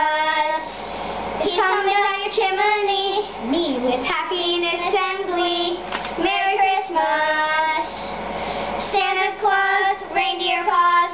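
Young girls singing a Christmas song without accompaniment, in drawn-out held notes.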